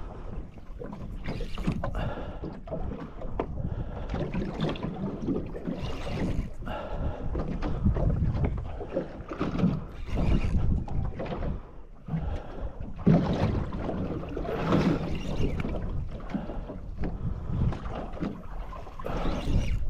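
Wind gusting over the microphone and water slapping against the hull of a small boat at sea, in irregular surges and splashes.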